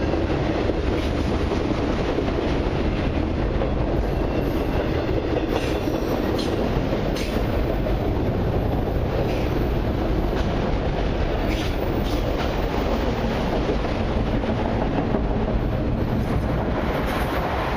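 Freight cars of a long intermodal and autorack train rolling past: a steady rumble of steel wheels on rail with clickety-clack over the joints.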